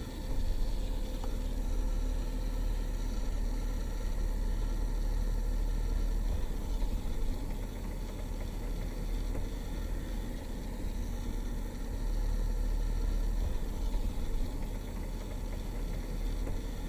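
Cabin noise inside a 2019 Mercedes-Benz G-Class driving on a dirt track: a steady low rumble of engine and tyres.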